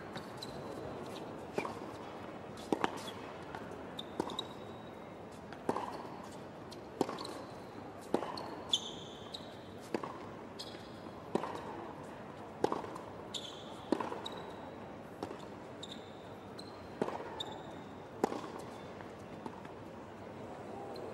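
Tennis rally on a hard court: a ball struck by rackets and bouncing, a sharp pop every second or so in a steady back-and-forth, with short high squeaks of tennis shoes on the court surface between the shots.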